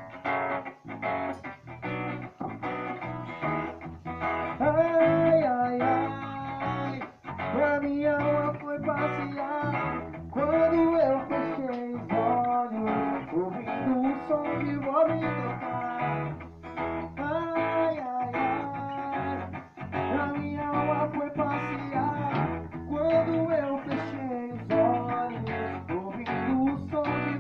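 Instrumental band intro in a reggae groove: strummed guitar over a bass line, with a lead melody line that bends between notes.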